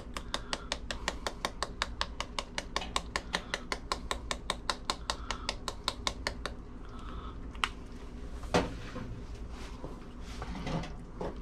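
Ground black pepper being shaken from a tin with a plastic shaker lid over a pot: rapid, even clicks, about six a second, for some six seconds. Then a knock, and a wooden spoon stirring in the thick chili near the end.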